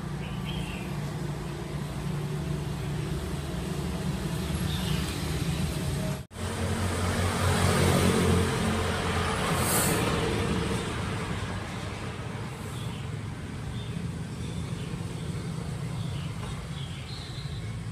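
Road traffic running past: a steady low engine rumble that swells as a heavy vehicle goes by in the middle, with a short hiss near its peak. The sound drops out for an instant about six seconds in.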